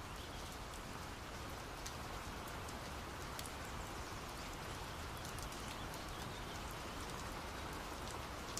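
Faint steady hiss with scattered light ticks, like a light-rain ambience.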